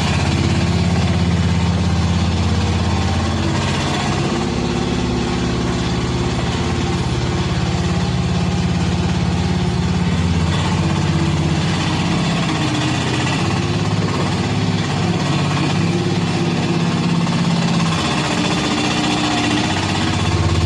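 Mini excavator engine running continuously, with engine speed shifting down and back up several times.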